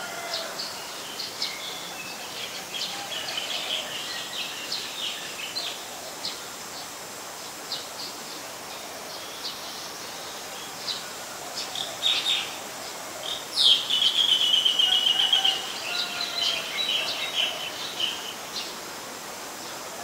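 Eurasian tree sparrow calling: a string of short chirps, with a louder rapid chattering run lasting about two seconds a little past halfway.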